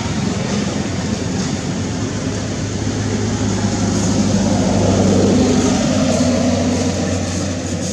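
An engine running steadily with a low hum, getting louder about five seconds in and easing off toward the end.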